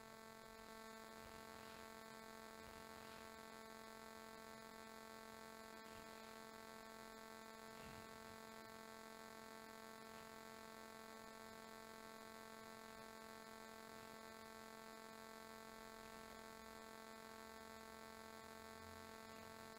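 Near silence: a faint, steady electrical hum under the room tone.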